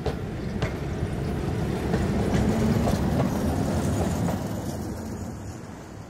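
PCC streetcar running past, growing louder to a peak midway and then fading, with scattered sharp clicks.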